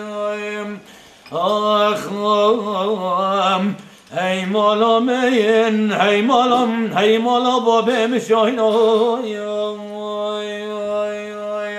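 A man singing a Kurdish dengbêj-style song: a single solo voice with wavering, ornamented melodic runs. The voice breaks off briefly about a second in and again near four seconds, and from about nine seconds holds a long steady note.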